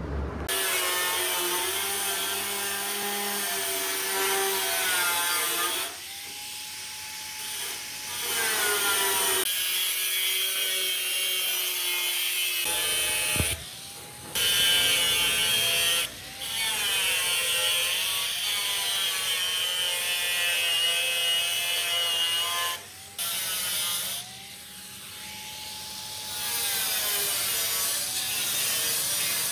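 Angle grinder with a thin cut-off disc cutting along a curve in galvanized steel sheet: a high metallic whine whose pitch wavers as the motor speeds up and slows under load. It stops and restarts several times.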